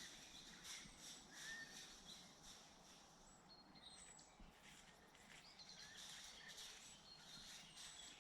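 Very faint birds calling: a few short high whistles and chirps, one of them falling in pitch, over a steady hiss.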